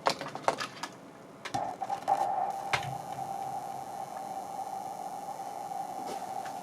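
A few sharp clicks, then about a second and a half in a steady single electronic tone with hiss starts and holds, made on an audio mixer. One more click falls near the three-second mark.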